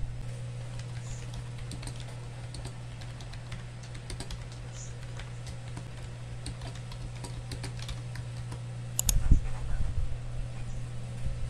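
Typing on a compact wireless keyboard with round plastic keycaps: a run of light key clicks over a steady low hum. A louder knock about nine seconds in, as the stylus is picked up off the desk.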